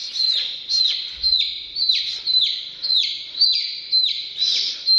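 Domestic chick peeping loudly and over and over, about two calls a second, each call falling in pitch. It is a chick's distress call while it is held up close to a cat.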